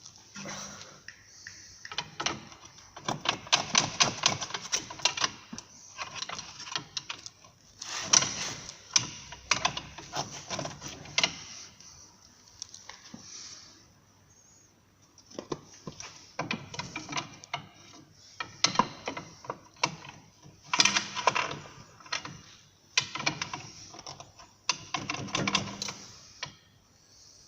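Hand ratchet wrench clicking in rapid bursts of a few seconds each, with short pauses between, as the bolts of an Audi A6's front upper suspension arm are undone.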